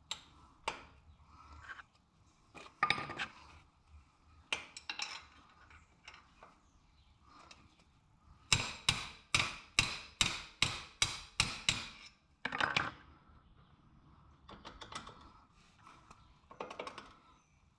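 Metal hand tools clinking against a motorcycle's shift linkage as it is worked on, with scattered sharp clinks. A bit past the middle comes a run of about a dozen evenly spaced sharp clicks, roughly three a second.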